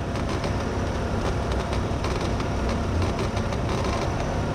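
Car engine idling with the A/C compressor engaged, and a steady belt-and-pulley noise from the serpentine belt drive. The noise is intermittent with the compressor off and becomes consistent under the compressor's load.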